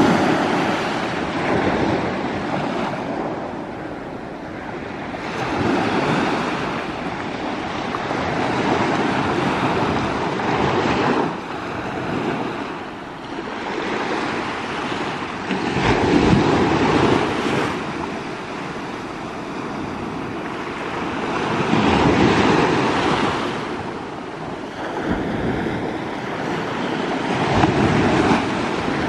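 Small sea waves breaking and washing up a sandy shore, each one swelling and fading over a few seconds.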